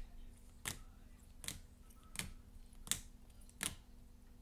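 Plastic-sleeved trading cards being flipped through one at a time, a sharp click about every three-quarters of a second as each card is moved over the stack, six in all, over a faint steady electrical hum.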